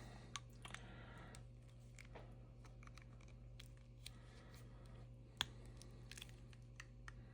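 Faint scattered clicks and light scraping from handling a 9 V battery and tools, with one sharper click about five and a half seconds in, over a low steady hum.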